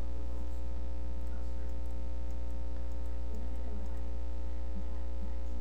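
Steady electrical mains hum, strongest at the low end with a ladder of fainter steady overtones above it, unchanging throughout.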